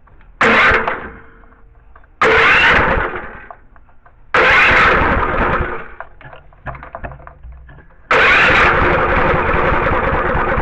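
New electric-start small gas engine on a pressure washer being cranked by its starter in four separate attempts, each beginning suddenly: a short one, two of one to one and a half seconds, and a last one of nearly three seconds.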